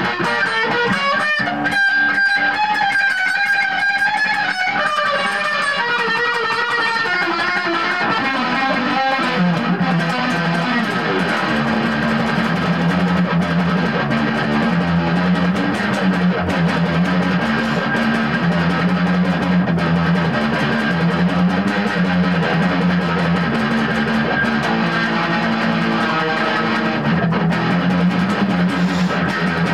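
Electric guitar playing a punk/metal piece: a higher melodic line for the first several seconds, then from about nine seconds in a low riff repeated over and over.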